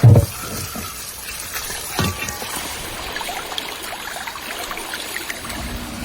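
Water trickling and splashing, with a dull thump at the start and another about two seconds in.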